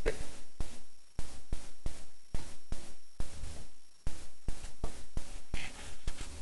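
Fingers stirring dish soap into water in a clear plastic tub, knocking and rubbing against the plastic in a run of irregular clicks, several a second.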